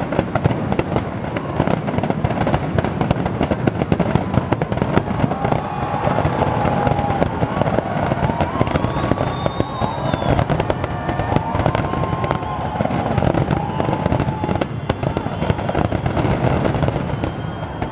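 Large fireworks display: many shells bursting at once, a dense, continuous crackle of rapid bangs at a steady loudness. A few long wavering whistles sound over it in the middle.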